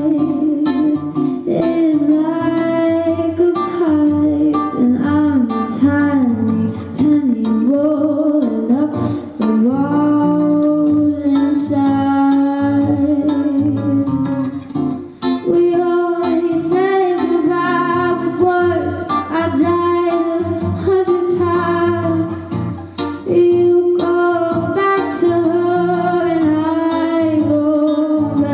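A woman singing to acoustic guitar accompaniment.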